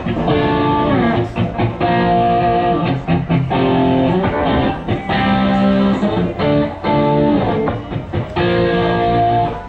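Guitar strumming a run of chords that change every second or so.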